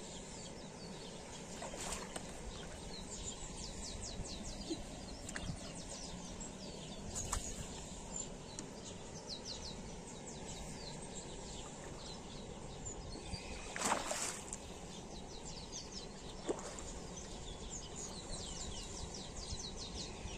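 Small birds chirping continually in outdoor ambience. A few brief splashes and knocks break in, the loudest about fourteen seconds in, as a hooked fish thrashes at the water's surface.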